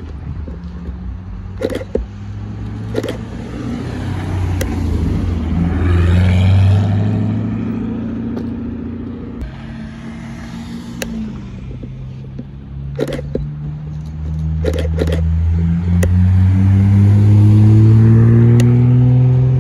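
Cars pulling away one after another, engines revving up and easing off, with a few short clicks. Near the end a Nissan Skyline R34 accelerates past close by, its engine pitch rising; this is the loudest part.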